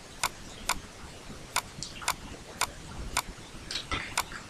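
Faint sharp clicks of a computer mouse, about two a second, with a few coming closer together near the end.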